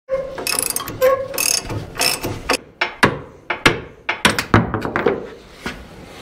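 Hand ratchet wrench clicking in quick runs as a bolt is loosened, with sharp metal clanks in between.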